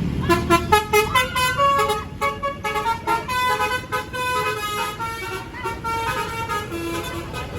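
Basuri telolet bus horn playing a quick melody of clear stepped notes, one after another for about seven seconds, over low traffic rumble.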